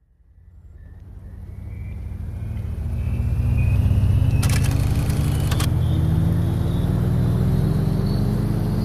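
Background music fading in: a deep low drone whose pitch slowly rises, with a short hissy swell about halfway through.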